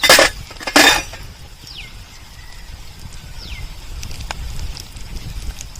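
Two short, loud scraping or rustling bursts in the first second, as spices go into the pot of gravy. After them, a bird repeats a thin whistle that falls in pitch every couple of seconds, over a low outdoor rumble, with a single sharp click about four seconds in.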